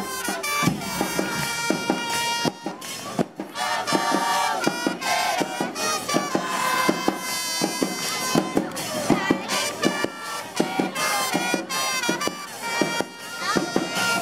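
Live murga carnival music: drums struck in a quick, busy beat under a loud, sustained melody with long held notes.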